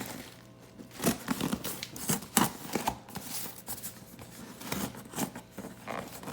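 A sealed shipping package being opened by hand: irregular tearing, scraping and crinkling of packaging, in short bursts.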